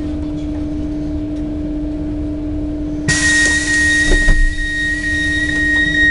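Southeastern Class 395 high-speed train at a station stop, its steady electrical hum running. About three seconds in, a sudden hiss of air starts along with a continuous high-pitched door-release tone that pulses lightly about twice a second, as the door's open button lights up ready for use.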